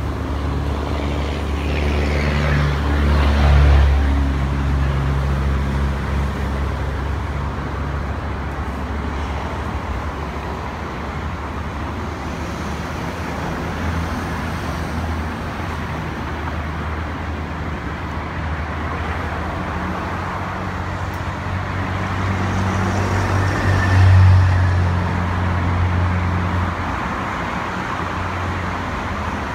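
Road traffic: motor vehicles running with a steady low rumble, two of them passing louder, the first about three seconds in and the second a little before the end.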